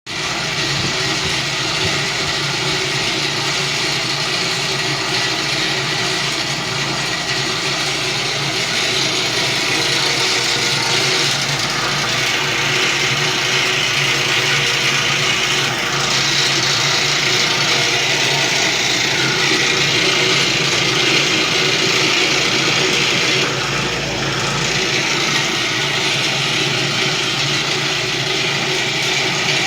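Homemade mini dough sheeter driven by a washing-machine electric motor through a ratchet used as a reduction gear, running continuously: a steady motor hum under a dense mechanical whir and rattle that shifts in strength a few times.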